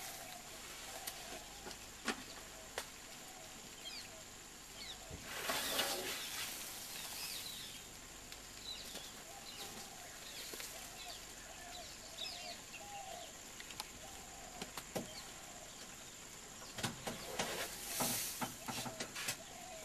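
A Sri Lankan elephant dust-bathing, blowing dust from its trunk in two bursts of rushing air, about six seconds in and again near the end, with scattered light scuffs of dirt. Birds chirp now and then in the background over a steady hiss.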